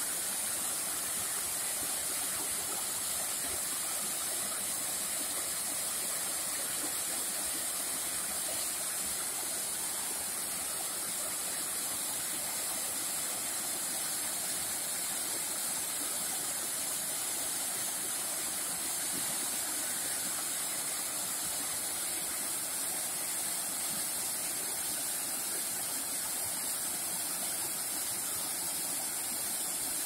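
Waterfall cascading over rocks: a steady rush of falling water with a strong hiss.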